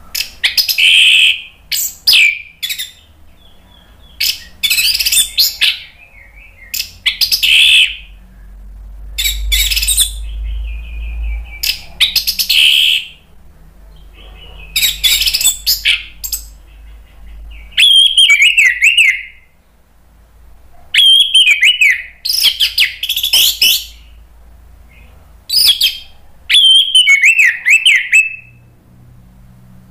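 Orange-headed thrush in full song: loud phrases of rapid, varied notes, one every two to three seconds, the later ones ending in wavering, falling whistles.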